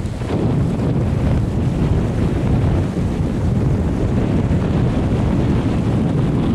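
Steady wind rumble on the microphone, with small waves lapping along the shore.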